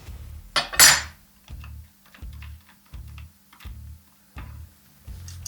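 Two sharp metal clinks, then a few faint light ticks, as the steel lock nut on a Dillon rifle sizing die is loosened. Under it runs background music with a steady low beat.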